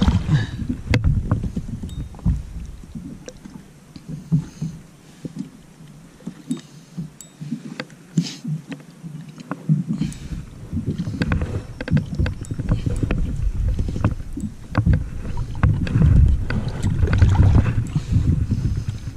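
Scattered knocks and clicks of gear being handled on a fishing kayak, over a low rumble of wind and water.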